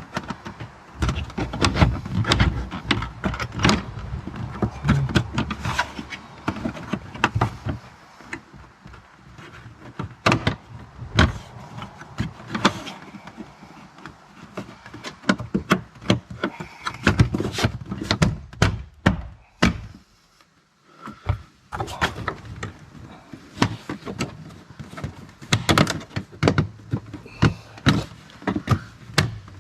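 Hands and tools working plastic interior trim panels and push clips loose in a car: a busy run of irregular clicks, knocks and rattles, with a short quiet pause about two-thirds of the way through.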